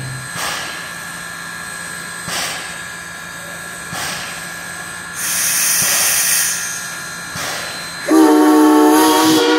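Steam hisses from Baldwin No. 26 steam locomotive about halfway through. Near the end its Central Railroad of New Jersey three-chime steam whistle starts a long blast, several notes sounding together as a chord.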